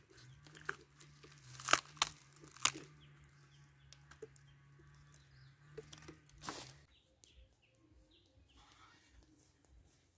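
Dry banana leaves and stalk debris crackling and rustling as a cut bunch of green bananas is handled on the ground, with a few sharp crunches in the first seven seconds over a steady low hum that stops about seven seconds in.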